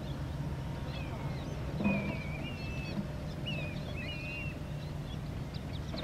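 A series of thin, wavering bird calls from about a second in until about four and a half seconds, over a steady low rumble.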